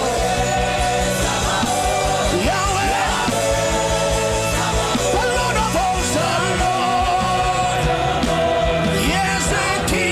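Sustained music on held chords, with voices wailing and crying out over it in intercessory travail prayer.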